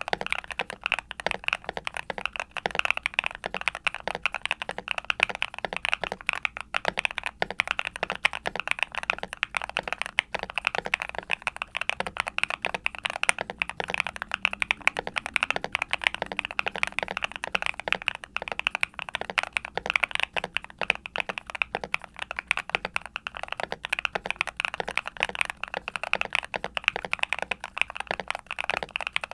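Continuous fast typing on a Yunzii C68 mechanical keyboard with Gateron Smoothie linear switches (full POM), a steel plate, foam dampening and PBT keycaps. It makes a dense, unbroken run of keystrokes with a deep, clacky bottom-out.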